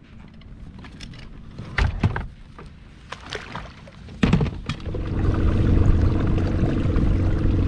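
Scattered clicks and knocks of handling in a boat, a thump about four seconds in, then a boat motor starting up and running with a steady hum that becomes the loudest sound.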